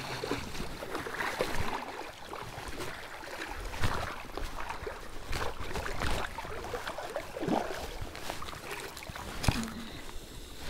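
Shallow stream water splashing and sloshing close by while a hooked trout is played toward the landing net, with scattered small knocks and clicks throughout.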